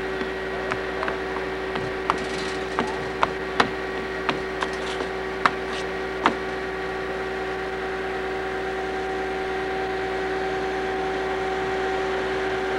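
About a dozen sharp clicks and knocks at irregular intervals through the first half, over a steady electrical hum.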